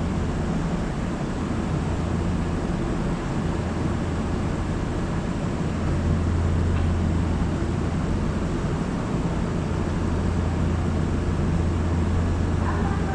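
Steady low hum and rumble of an electric train at the station platform.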